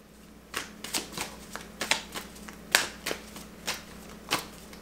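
A tarot deck being shuffled overhand: an uneven run of soft card slaps and clicks, about two or three a second, as packets of cards drop onto the deck.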